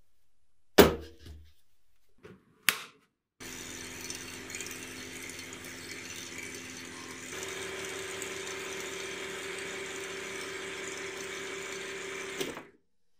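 Two sharp knocks, then a small electric power tool's motor starts about three seconds in and runs steadily. About halfway through its note shifts and it gets a little louder, then it stops shortly before the end.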